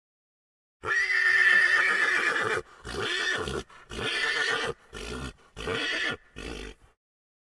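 Pony whinnying: about a second in, one long high call, followed by a run of five shorter, quieter pulses that stop shortly before the end.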